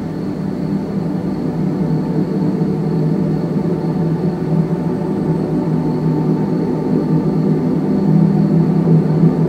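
A steady low droning rumble that slowly grows louder, with a faint thin steady whine high above it.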